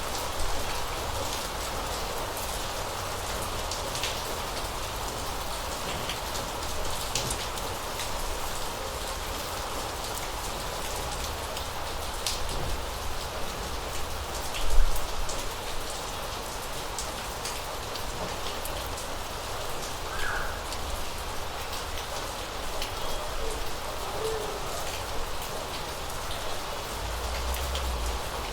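Rain falling in a city: a steady hiss with many separate drops ticking on nearby surfaces. A single low thump about fifteen seconds in is the loudest moment.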